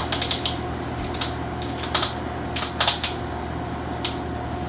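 Irregular sharp clicks and taps of a knife and a plastic olive-oil container on a wooden cutting board as the container is worked open, over a steady low hum.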